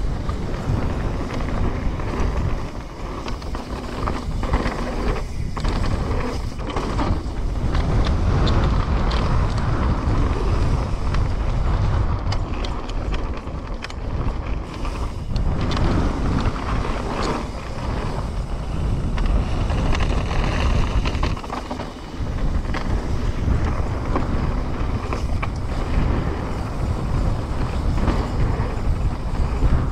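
Trek Slash 9.9 enduro mountain bike descending a rough trail at speed: tyres rumbling over dirt and rocks, with constant clatter and knocks from the chain and frame. Wind buffets the action camera's microphone throughout.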